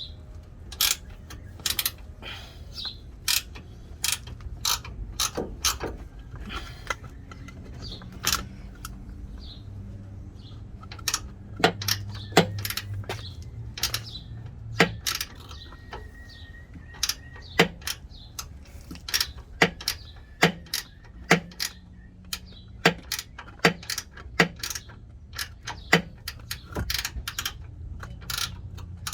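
Hand ratchet wrench clicking in short runs of sharp clicks as a suspension bolt is worked loose.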